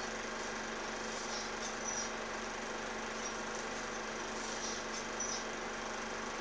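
Steady hiss with a constant low hum from an old film soundtrack, with a few faint, short, high squeaks scattered through it.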